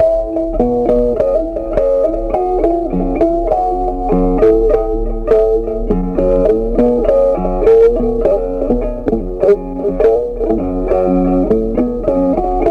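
Background instrumental music: a plucked guitar playing a quick run of notes over a low bass line.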